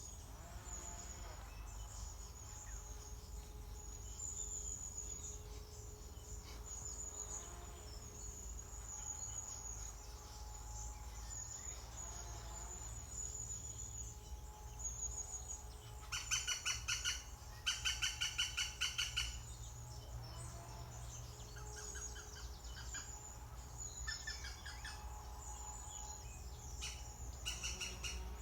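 Green woodpeckers calling at the nest: thin high chirps repeat throughout, and about two-thirds of the way in come two loud, fast runs of rapid repeated notes, with a few shorter runs near the end.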